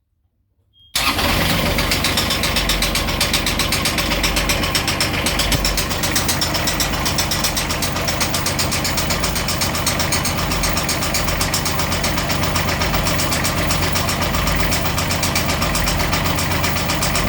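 Beta 25 hp marine diesel engine starting about a second in and then idling steadily with an even, rapid rhythm, including the knocking sound it has developed at 700 hours.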